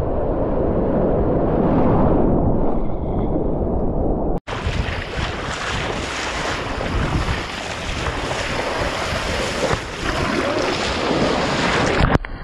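Surf and splashing seawater rushing over a kayak-mounted action camera, with wind buffeting the microphone. The sound is muffled at first, then cuts off sharply a little over four seconds in and comes back as a brighter, fuller rush of spray and breaking wave as the kayak rides through the surf.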